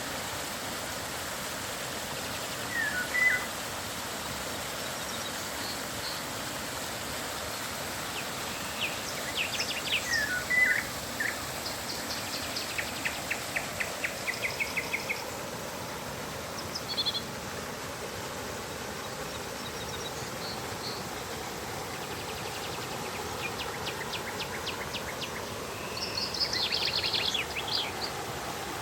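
Steady rush of flowing river water with birds calling over it: scattered chirps and whistled notes, a fast trill of evenly repeated notes about twelve seconds in, and a busy run of high calls near the end.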